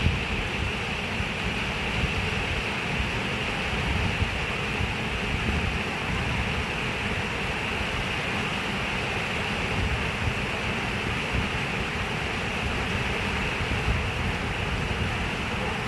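Running water: a steady, even rush with a low rumble underneath.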